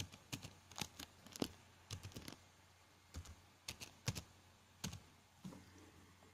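Typing on a computer keyboard: an irregular run of keystrokes that stops about five seconds in.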